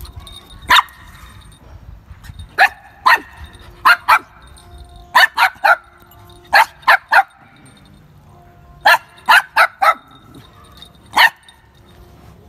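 Dog barking in short, sharp yips while playing with a puppy: about sixteen quick barks, mostly in bursts of two or three.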